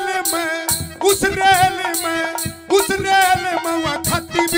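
Male folk singer singing a Haryanvi ragni through a PA microphone, with a steady held note underneath and light rattling percussion; the heavy drum beats drop out.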